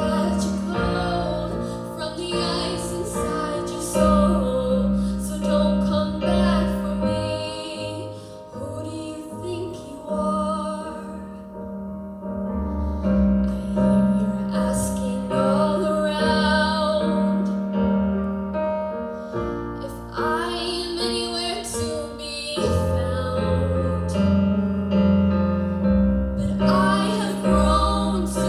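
A woman singing a slow pop ballad in phrases, accompanied by piano.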